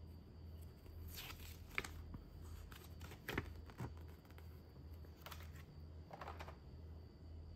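Paper instruction sheet rustling and crackling in several short bursts as it is unfolded and handled, with a few sharp clicks. Near the end there is a brief rattle of the clear plastic blister tray being handled. A faint low hum runs underneath.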